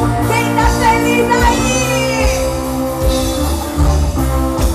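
Live band music played over PA loudspeakers, with a voice singing long held notes over the band.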